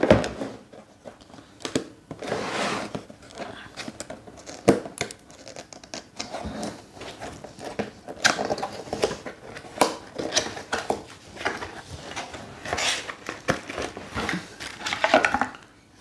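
Cardboard carton being handled and opened by hand: irregular rustling, scraping and tapping of the box and its flaps.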